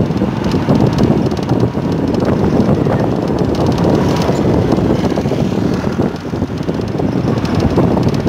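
Wind buffeting the microphone of a camera riding along a road: a steady, loud low rumble, with the noise of the moving vehicle and passing traffic underneath.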